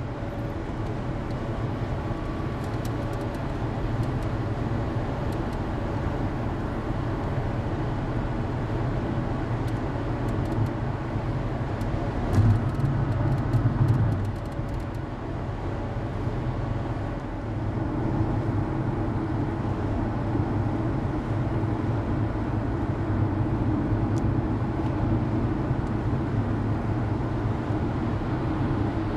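Steady road noise of a car at highway speed, heard from inside the cabin: tyre and engine drone, with a louder rumble about twelve to fourteen seconds in.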